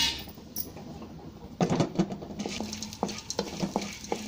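Chana dal and urad dal frying in a little oil in a kadai, with a light sizzle. From about a second and a half in, a wooden spatula stirs them, knocking and scraping against the pan a few times a second.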